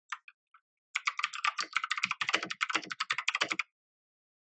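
Keys of an MK Disco TKL mechanical keyboard being typed: a few single keystrokes, then about a second in a fast flurry of keystrokes lasting under three seconds that stops abruptly.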